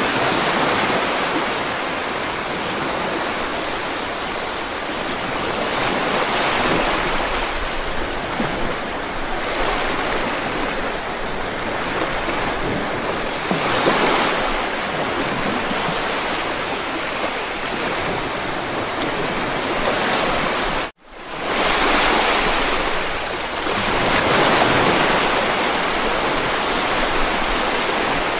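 Steady rain, swelling and easing every few seconds. It cuts out for a split second about three-quarters of the way through, then fades back up.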